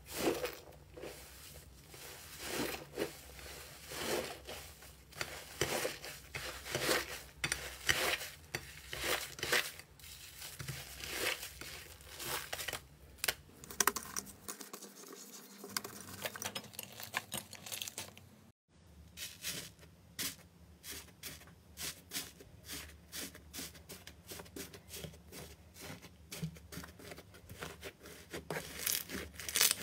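Hands pressing, kneading and poking slime, making a dense run of irregular crackles and sticky popping sounds. There is a brief gap about two-thirds of the way through, and then the crackling goes on.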